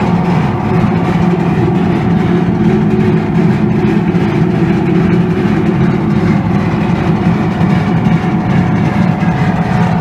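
A 32 by 24 inch hammer mill running steadily, a continuous machine drone with a dense noisy rattle over it.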